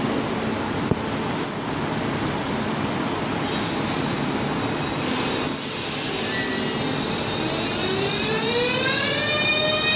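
ES2G Lastochka electric train starting to pull away. Over steady train noise, a sudden loud hiss sets in about five and a half seconds in. Then the traction motors' whine starts and climbs steadily in pitch, in several tones at once, as the train accelerates.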